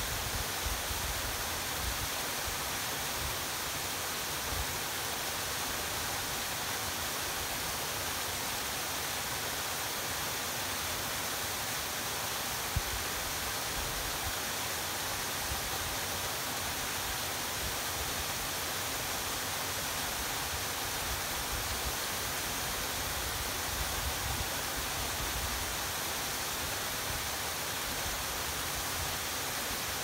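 Two-tier waterfall pouring and splashing at its base: a constant, even rush of falling water. An uneven low rumble from wind on the microphone comes and goes underneath.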